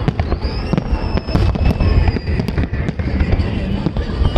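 Fireworks display: a rapid run of bangs and crackles over a heavy low rumble, with a whistling tone rising about half a second in.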